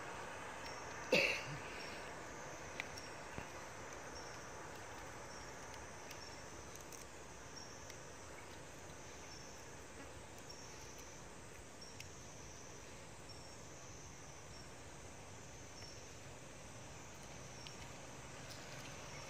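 Faint insect chorus, a high drone that pulses on and off. A brief sharp sound, the loudest thing here, comes about a second in, followed by two small clicks.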